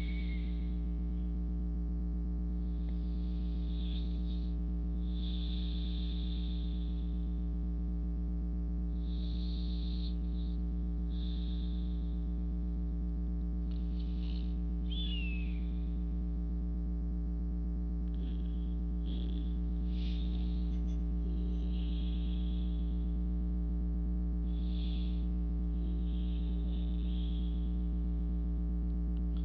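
A steady low electrical-sounding hum throughout, with soft breaths coming and going every second or two over it.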